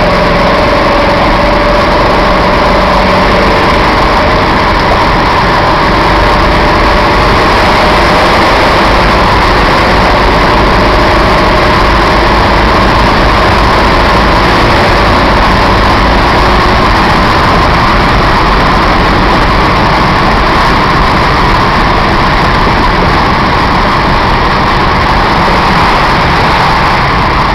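Car engine and road noise heard inside the cabin while driving, loud and steady.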